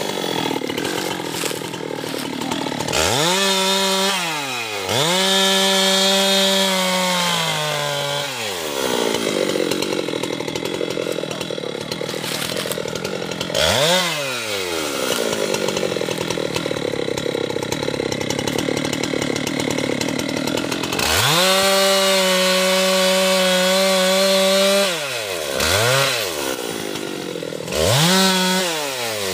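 Husqvarna chainsaw cutting teak. The engine revs up and holds high a few times, with a long rougher stretch in the middle. Near the end the throttle is blipped in quick short revs.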